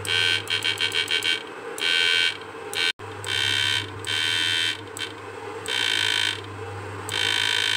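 Susan 1030 SMP electric fish-shocker inverter buzzing harshly in on-off bursts while it drives a 200-watt test lamp. The pulses come short and rapid in the first second or so, then as longer bursts of about half a second to a second, over a steady low hum.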